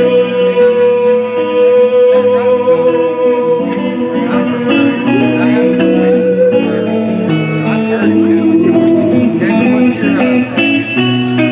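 Live band playing an instrumental passage with guitar to the fore: one long held note for the first six seconds or so, then shifting chords.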